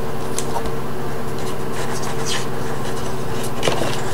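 Paper and cardboard packaging handled: a few light rustles and scrapes over a steady low background hum.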